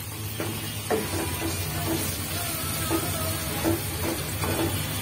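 Chopped tomato sizzling as it fries in hot oil and spice paste in a pan, while a wooden spatula stirs and scrapes through it with a scrape every half second or so.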